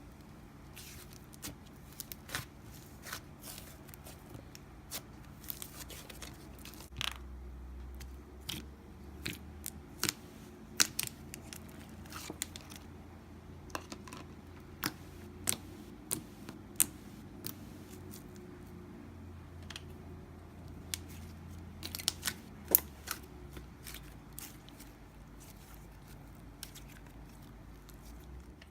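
Slime being pressed, poked and stretched by hand, giving irregular sharp clicks, pops and crackles a few times a second.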